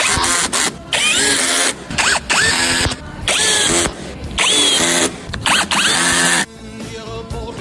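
Power drill/driver run in about six short bursts of around a second each, its motor whine rising in pitch as each burst starts, with short pauses between trigger pulls.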